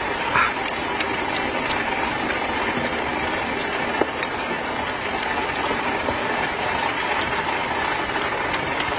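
Steady rain, an even hiss, with scattered small ticks and taps throughout.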